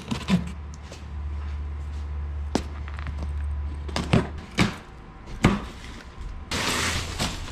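Large cardboard shipping box being opened: a utility knife cutting through packing tape, with several sharp knocks and taps against the cardboard, then a loud rushing scrape of cardboard near the end as the lid is pulled off. A low steady hum sits underneath for roughly the first half.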